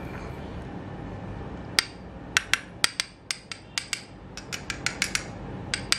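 Metal bar-end motorcycle mirror being handled and worked, its metal arm, joint and mirror head giving a run of sharp, irregular clicks and taps starting about two seconds in.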